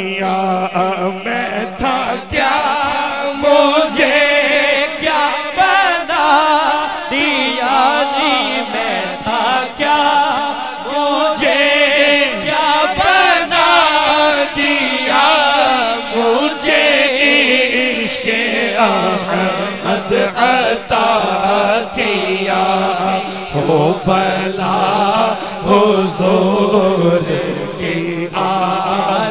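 Male naat reciter singing unaccompanied into a microphone, a long ornamented melismatic line that wavers up and down, over a steady low drone.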